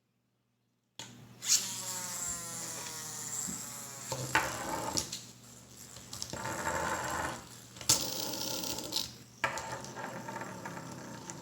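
Handling noise of a plastic toy and its packaging: scraping and rustling broken by several sharp clicks.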